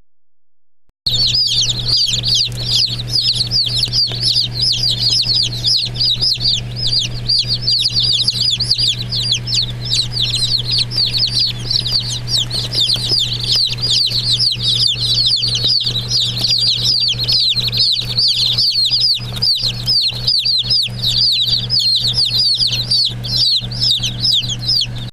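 A brood of Black Broiler baby chicks peeping all at once, starting about a second in: many high, downward-sliding chirps running together without a break, over a steady low hum.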